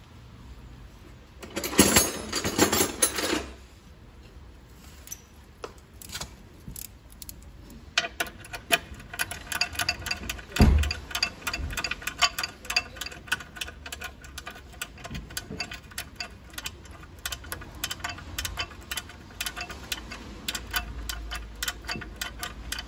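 Hand ratchet clicking rapidly in long runs from about eight seconds in, as nuts are run down on the knuckle-arm studs of a Toyota Prado 78's front axle. A burst of metal clatter about two seconds in and a single dull knock near the middle.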